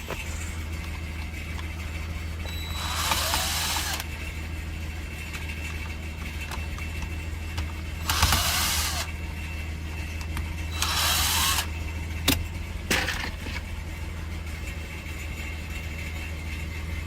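A car engine idling steadily, with several short hissing bursts of about a second each and one sharp click.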